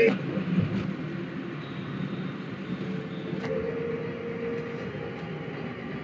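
Steady road and engine noise of a car on the move, with a faint held tone for about a second and a half midway.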